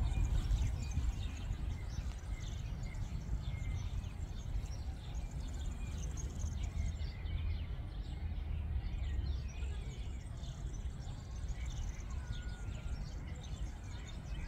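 Steady low wind rumble on the microphone, with faint, scattered bird chirps throughout.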